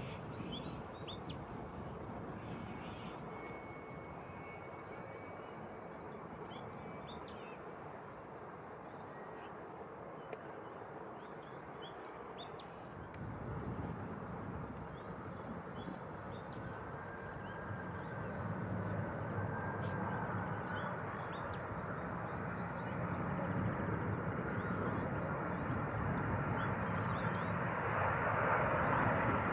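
Qantas Airbus A330 on final approach: the steady rush of its jet engines grows louder from about halfway through, with a faint whine rising and falling in the middle. Small birds chirp faintly during the first several seconds.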